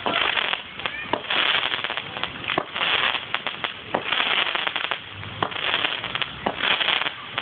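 Fireworks going off: repeated waves of dense crackling, with sharp bangs among them.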